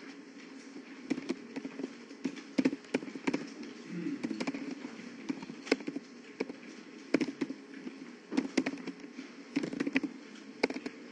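Computer keyboard typing: irregular keystroke clicks, some in quick runs with short pauses between, over a faint steady room hum.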